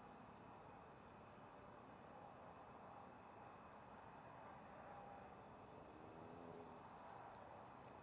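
Faint, steady chirping of crickets in near silence.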